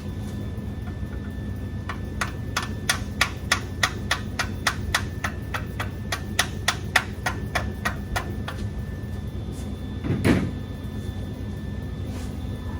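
A hammer striking metal: a run of evenly spaced sharp taps, about three a second, for several seconds, then one heavier knock a little later, over a steady low hum.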